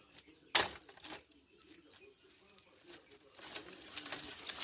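Firewood being handled for a bonfire pile: a sharp wooden knock about half a second in and a lighter one soon after, then faint rustling and clicks that grow busier near the end.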